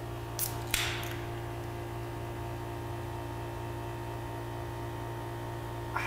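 Aluminium energy drink can being opened: a short crack about half a second in, then a sharper pop just before the one-second mark that trails off in a brief hiss of escaping gas. A steady low electrical hum runs underneath.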